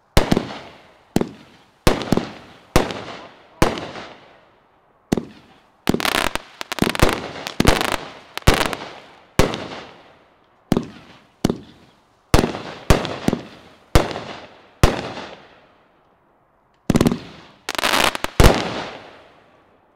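Deadwood consumer firework cake firing its shots one after another: sharp bangs, each trailing off in a fading echo, with quicker volleys of bursts in the middle and a loudest final flurry before it stops near the end.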